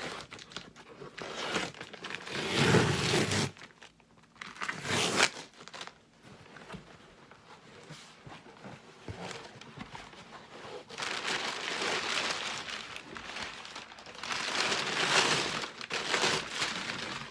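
A box being opened by hand: packaging crinkling and tearing in irregular bursts, with a quieter stretch in the middle before a longer spell of rustling.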